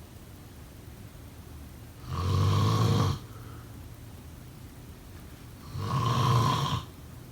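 A person snoring: two loud snores, each about a second long, some four seconds apart, with quieter stretches between them.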